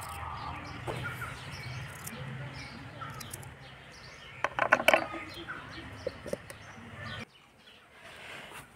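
Small clicks and taps of a knife cutting garlic over a steel grinder jar, loudest in a quick cluster about halfway through, with birds chirping. A steady low background hum cuts off suddenly near the end.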